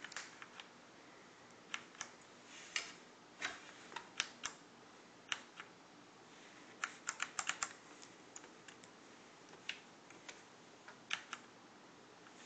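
Keys on a computer keyboard being pressed, scattered single clicks every second or so with a quick run of about six keystrokes around seven seconds in.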